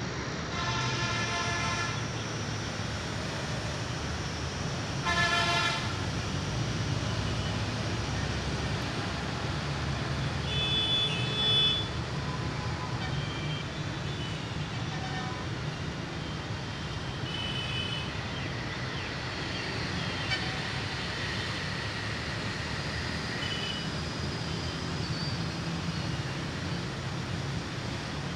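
Steady road-traffic rumble with vehicle horns honking: one horn sounds for over a second near the start, a louder short honk comes about five seconds in, and a few fainter short tones follow later.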